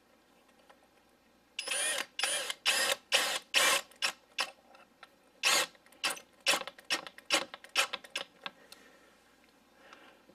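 Magnetic pivot drill bit holder being worked by hand: a run of around twenty sharp clicks and short scraping snaps over about seven seconds, with a few louder ones, then it stops.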